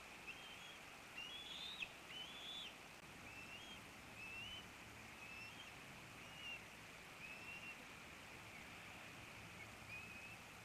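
Bald eagle eaglet peeping: a series of short, high, rising chirps, about one a second, stronger in the first few seconds, over a steady hiss.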